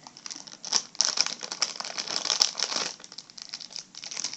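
Crinkling and rustling of a toy blind bag's wrapper being handled and opened, with quick, irregular crackles and short pauses.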